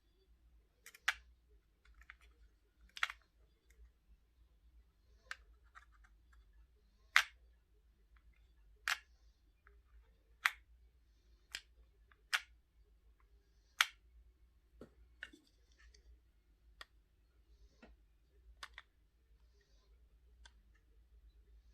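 A series of about a dozen sharp clicks at irregular spacing, roughly one every one to two seconds, from small objects being handled.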